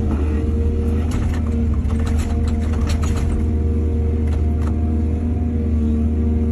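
Excavator's diesel engine running steadily under load, with bursts of short clatters and scrapes about a second in and again past the middle.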